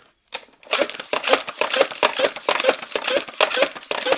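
Buzzbee Air Max 10 air-pressure dart blaster being pumped to charge its air tank: a fast, even run of plastic pump strokes, about four sounds a second, each with a short squeaky puff of air. It starts a moment in.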